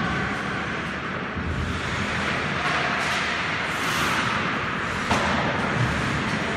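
Ice hockey play in an indoor rink: skates scraping the ice under the hall's steady din, with a short sharp knock about five seconds in.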